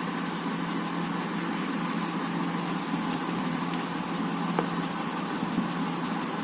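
Steady background hum and hiss from a running machine, with a faint click about four and a half seconds in.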